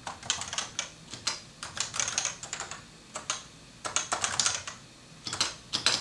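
Typing on a Realforce 86U keyboard with Topre electrostatic-capacitive key switches: quick runs of soft, muted key strokes broken by two short pauses. A quiet, cushioned typing sound.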